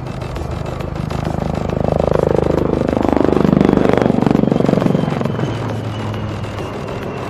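HAL Prachand light combat helicopter flying past: its rotor beat and twin turboshaft engines swell to a peak and fade again, the pitch dropping as it goes by.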